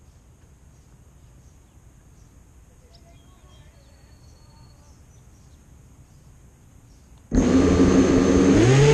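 Quiet outdoor background, then about seven seconds in the brushless motors of a Shen Drones Tweaker 4-inch FPV racing quadcopter suddenly spin up, a loud, steady-pitched buzzing whine of the motors and props.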